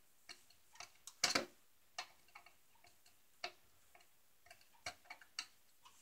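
Irregular small clicks and taps of hands working wires and mounting hardware at a ceiling electrical box, with a louder brief clatter about a second in.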